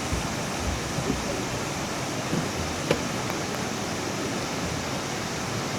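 Mountain valley stream rushing steadily over rocks. A single sharp click sounds nearly three seconds in.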